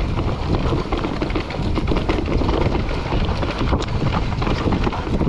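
Electric mountain bike riding fast down a dirt trail: a steady rush of wind over the microphone with tyre noise and a constant clatter of knocks and rattles from the bike over bumps and roots.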